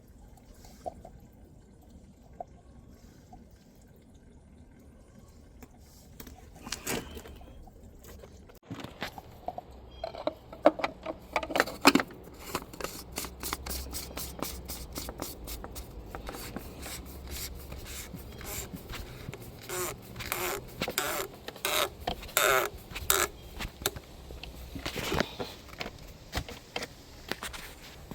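A run of irregular sharp clicks, knocks and scrapes of hard parts or tools being handled during an oil change. It begins several seconds in, after a quiet start, and is busiest in the middle.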